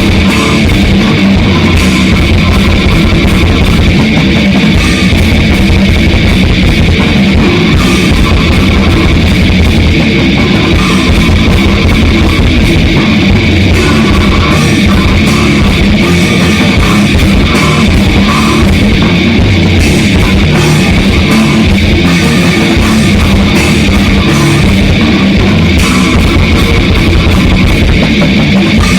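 Grindcore band playing a song at rehearsal: distorted electric guitars, bass and drum kit, loud and without a break.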